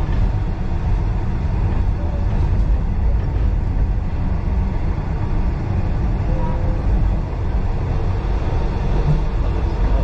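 Heritage railway passenger carriage running along the track, heard from inside: a loud, steady low rumble of wheels on rails.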